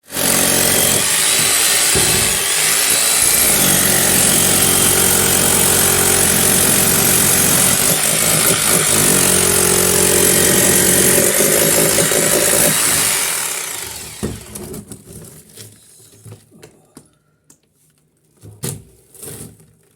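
An electric hammer drill runs continuously and loudly, then its motor winds down about thirteen seconds in. A few scattered knocks follow.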